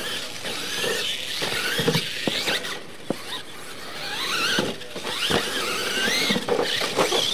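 Electric motors of several Losi LMT radio-controlled monster trucks whining as they race, the pitch rising and falling with the throttle. Short knocks come through as the trucks hit ramps and land.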